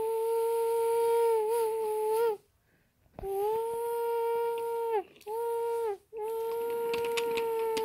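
A high human voice hooting a train whistle: long notes held at one steady pitch, each dipping as it breaks off, three long and one short. A few light clicks come near the end.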